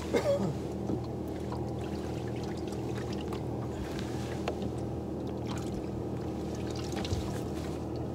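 A small motor running with a steady low hum aboard a small fishing boat.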